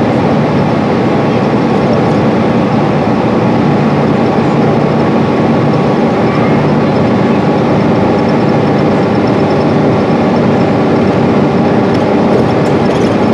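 Cummins ISL 280 inline-six diesel engine of a 2012 Gillig BRT transit bus, running at a steady note as the bus travels, heard from inside the passenger cabin with road noise.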